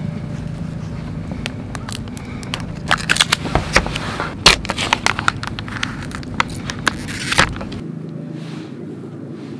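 Plastic lid and inner seal of a Meiji Essel Super Cup ice-cream cup being pulled off: a run of sharp crackles and crinkles that thins out after about seven seconds, over a steady low rumble.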